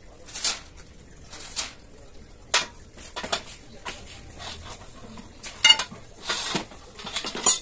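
Metal shelf parts (painted steel frame rails and a mesh shelf panel) being handled and set down: a string of separate clanks, scrapes and rattles, with a sharp ringing metal clank a little past halfway.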